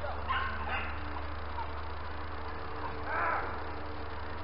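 Hunting dogs barking during a driven hunt: a few short barks in the first second, then one louder, drawn-out bay about three seconds in.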